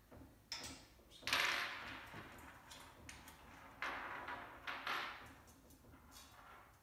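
Metal frame parts, fittings and hand tools being handled on a wooden table during wheelbarrow assembly: a few clatters and scrapes, the loudest about a second in.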